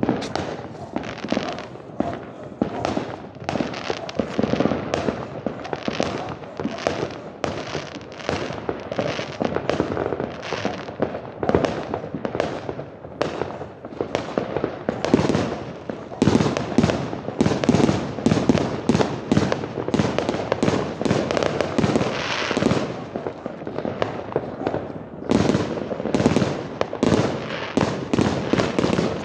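A fireworks barrage: a dense, rapid run of bangs and crackles, many each second, easing briefly about three-quarters of the way through before picking up again.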